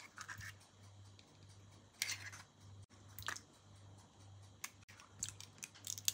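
Faint, sparse kitchen handling sounds: a few short scrapes and clicks spread over a few seconds, with a low steady hum underneath.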